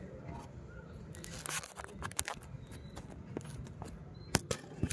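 A few short, sharp clicks and knocks of an aluminium window section being handled on a glass sheet, the loudest pair near the end, over a low steady hum.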